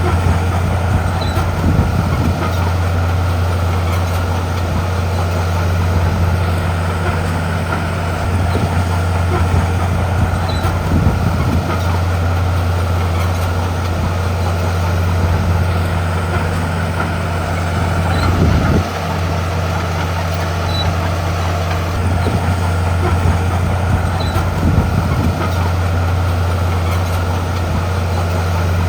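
Heavy crawler bulldozer's diesel engine running steadily under load, a deep even hum, with a few low knocks from the machine working rock.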